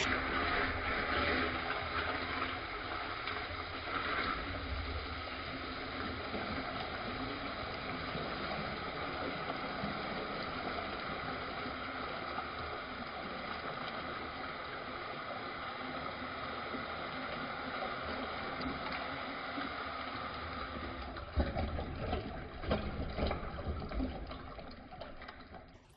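Toilet flush slowed down: a long, deep rush and gurgle of water swirling down the bowl, with a few louder surges near the end.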